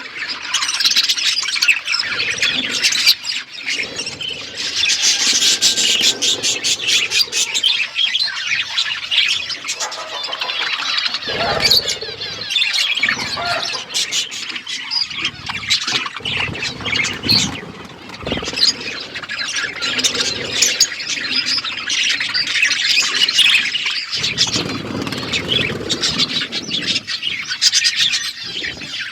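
A group of pet budgies and lovebirds chirping and chattering continuously, a dense mix of short rapid calls with occasional sharper squawks.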